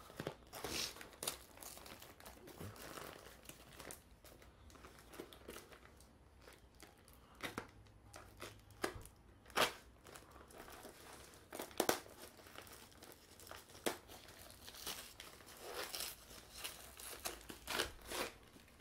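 Plastic courier mailer bag crinkling and tearing as it is cut and ripped open with a pocket knife. It goes in irregular short rustles, with a few sharper snaps around the middle.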